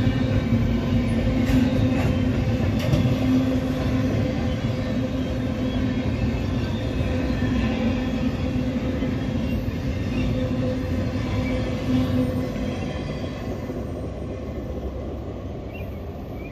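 Double-stack container train rolling past: steady rumble of wheels on rail with a sustained steady tone and occasional clanks. It fades over the last few seconds as the final cars go by.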